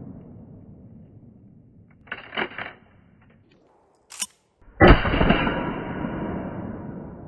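Bullpup shotgun: the echo of a previous shot dies away, the action is worked with a short metallic clatter about two seconds in, then a loud shot about five seconds in with a long fading echo.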